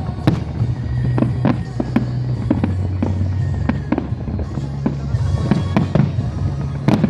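Fireworks going off in a rapid run of bangs and crackles, a couple or more a second, with a sharper bang near the end. Music with a steady low bass plays underneath.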